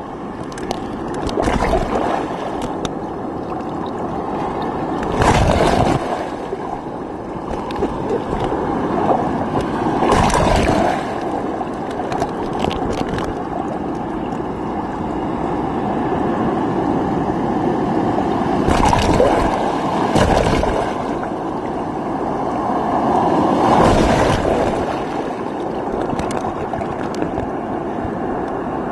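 Rough hurricane surf sloshing and gurgling around a camera at water level, with several louder surges as waves wash over it.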